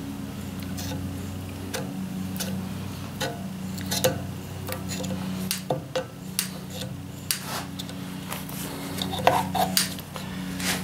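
Grease gun with a needle tip forcing grease into a tractor axle's roller bearing: irregular sharp clicks and rubbing as it is pumped and worked around the bearing, over a steady low hum.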